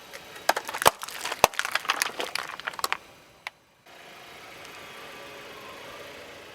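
Things crunching and cracking under a car tyre: a dense run of sharp cracks and snaps for about three seconds, then a quieter steady hum.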